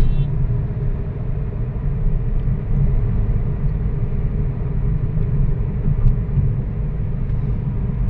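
Steady low rumble of a car driving along at speed, heard from inside the cabin: engine and tyre noise from the road.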